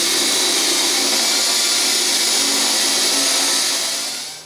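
Cordless drill running steadily as it bores a hole through the side of an aluminium diamond-plate tongue box, winding down near the end.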